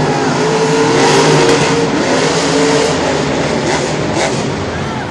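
Two monster truck engines running and revving as the trucks drive across the dirt arena floor, the engine pitch shifting up and down over a constant din, heard through the echo of a large indoor stadium.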